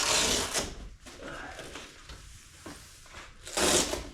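Openroad 270° awning being pulled open, its fabric and cover giving two short scraping rushes of noise: one at the start and one about three and a half seconds in, with quieter handling between.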